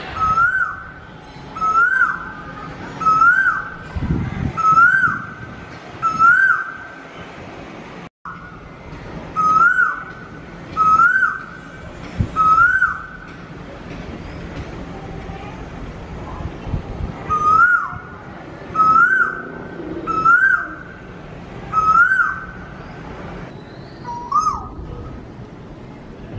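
Indian peafowl calling: loud, short rising calls repeated about every second and a half in runs of three to six, with a lower, falling call near the end. The sound cuts out completely for an instant about eight seconds in.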